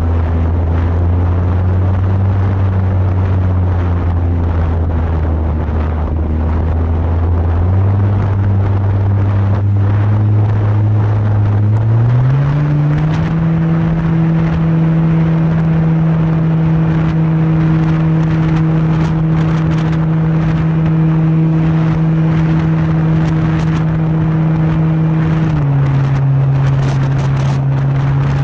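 Radio-controlled PC-21 model plane's motor and propeller droning steadily in flight. The pitch steps up about 8 s in, climbs again about 12 s in, and drops a step near the end as the throttle changes.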